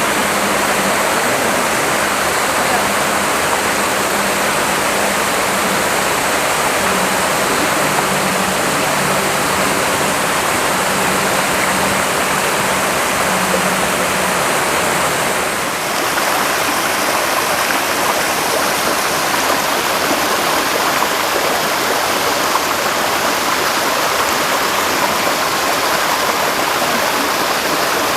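Steady rush of a waterfall's falling water, its tone changing slightly about halfway through.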